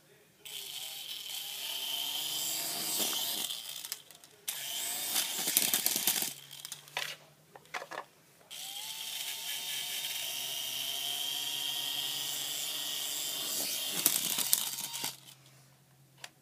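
A toy RC helicopter's small electric rotor motors whining. They start up three times with short pauses between, each start rising in pitch. Sharp knocks and clattering come in as the helicopter fails to fly and topples over.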